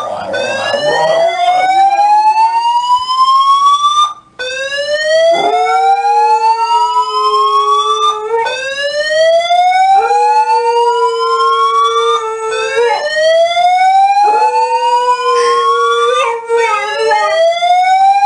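A siren wailing in long rising sweeps that restart about every four seconds, with a dog howling along in held notes.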